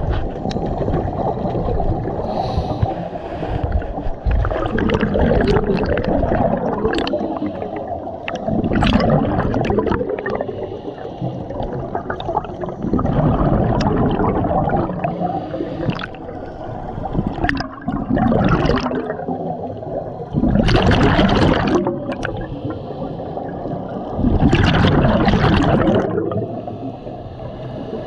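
Muffled underwater sound of a scuba diver breathing through a regulator, with gurgling rushes of exhaled bubbles every few seconds, heard through a GoPro's waterproof housing.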